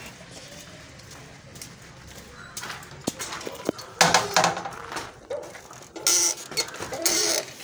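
A few clicks, then metallic clattering as the sliding bolt of a metal door is worked and the door opened. It is loudest about four seconds in, with more rattling near the end.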